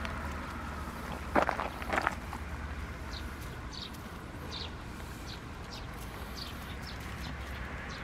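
Two sharp crunches on gravel about a second and a half in, from a Shiba Inu's paws as it noses for rose petals. After them a bird chirps repeatedly, a short high note about twice a second, over a steady low rumble.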